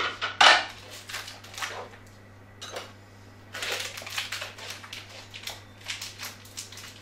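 Plastic wrapping being slit with a knife and peeled off a block of kaşar cheese: irregular crinkling and crackling in short bursts, loudest about half a second in.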